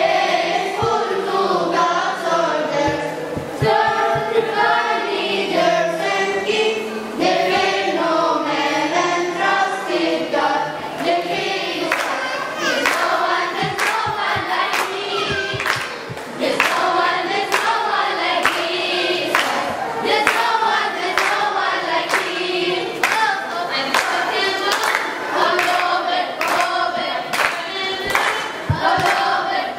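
Children's choir singing together. From about twelve seconds in, the singers clap along in a steady rhythm.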